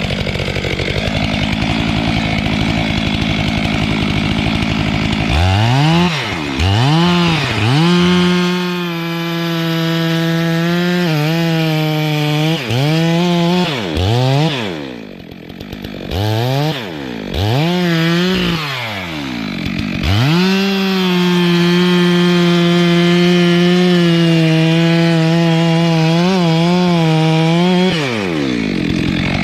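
Two-stroke chainsaw run loud, its engine revved up and dropped back again and again, held at high revs for a few seconds at a time while cutting wood, with one long steady stretch near the end.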